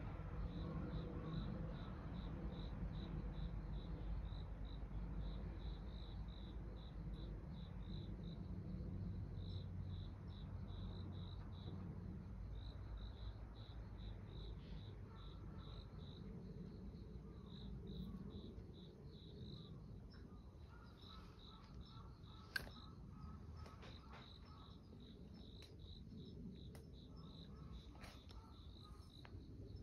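A cricket chirping in short, evenly spaced pulses, about three a second, over a low rumble. A single sharp click a little over twenty seconds in.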